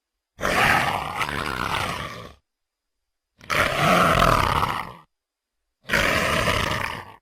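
Three separate Carnotaurus creature roars from a dinosaur sound-effect file, each lasting about one and a half to two seconds and separated by short silences.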